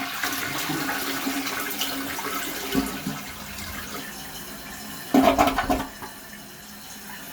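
Toilet flushing with the handle held down, a test flush of a newly fitted flapper: water rushing out of the tank and slowly dying away, with a brief louder burst about five seconds in.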